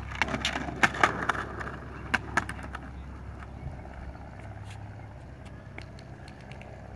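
Skateboard rolling on a concrete sidewalk as a child pushes off, with a quick run of sharp clacks in the first couple of seconds. A fainter rolling noise follows as the board moves away.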